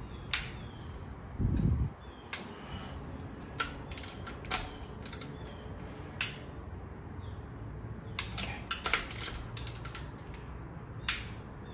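Long Snap-on torque wrench and socket tightening cylinder head bolts on a 5.3 L LY5 V8: scattered sharp metallic clicks and ratchet clatter, with a quick run of clicks about two thirds of the way through. A single dull low thump comes about a second and a half in.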